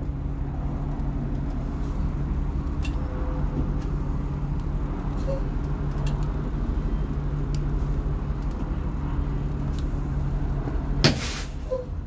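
School bus engine running steadily, heard from inside the bus as it creeps forward and stops. About a second before the end comes a short, sharp air-brake hiss.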